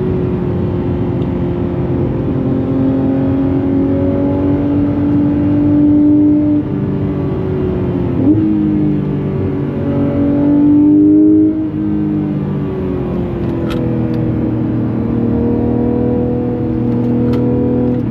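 Porsche 991.2 GT3 RS's naturally aspirated 4.0-litre flat-six, heard onboard, pulling under load with its pitch rising slowly. It twice falls away sharply, about six and a half and eleven and a half seconds in, with a short rev blip in between.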